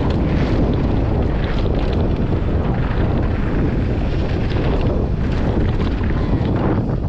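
Heavy wind buffeting on the microphone of a mountain bike descending fast, with the tyres rumbling over loose dirt and gravel and scattered crackles of stones and the bike rattling over the rough surface.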